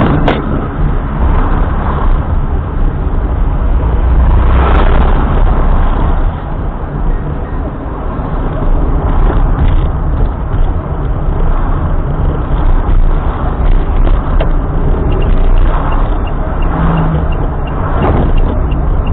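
A car driving, with steady engine and road noise and a few brief louder swells.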